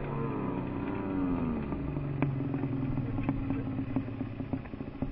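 Two-stroke dirt bike engine running, its pitch falling and rising as the throttle is worked and then holding steady. A few sharp ticks are heard over the middle of it.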